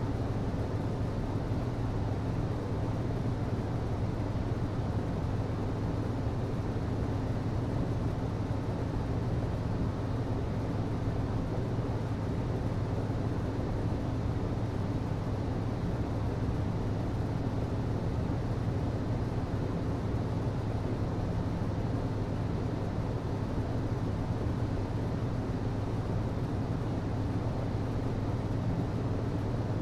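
HVAC system running: a steady low hum with an even rush of air, unchanging throughout.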